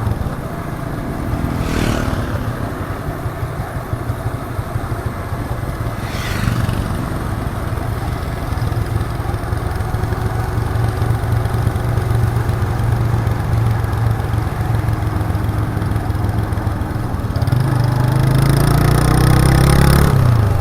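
1998 Suzuki GN125's single-cylinder four-stroke engine running under way, its raw exhaust note steady through the ride. Near the end the engine climbs in revs and gets louder as the bike accelerates.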